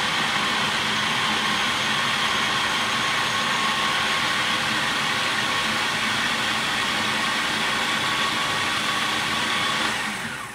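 Countertop food processor running steadily at full speed, its blade pureeing soft boiled fennel, a constant motor whine with held tones; it winds down near the end.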